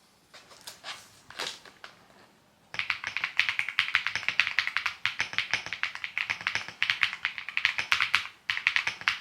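Typing on a computer keyboard: a few scattered key presses, then from about three seconds in, fast continuous typing with a brief pause near the end.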